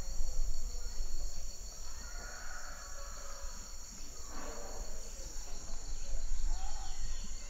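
Tropical rainforest insect chorus: a steady, high-pitched drone in several layers, with a few fainter calls and a low rumble underneath.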